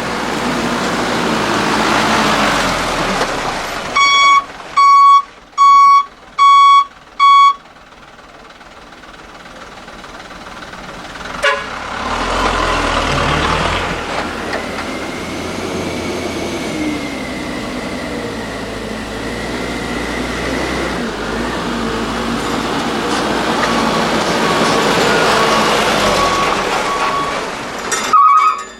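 Heavy trucks passing with engine and tyre noise swelling and fading. A horn toots five times in quick succession about four seconds in, and toots again near the end.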